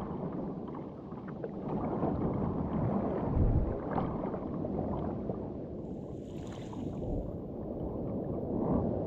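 Water sloshing and splashing around a plastic fishing kayak out on the swell, uneven and surging, with a brief hissing splash about six and a half seconds in.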